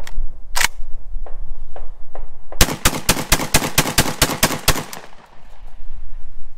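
Saiga 12 semi-automatic 12-gauge shotgun fired in a rapid string of shots, about six a second for roughly two seconds, after a single sharp crack and a few lighter clicks. It cycles shot after shot without a stoppage from a longer magazine.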